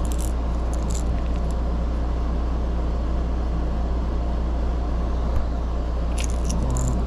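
Steady low hum of a window air conditioner running, with a few light clicks near the start and again near the end as a crankbait lure is turned over in the hands.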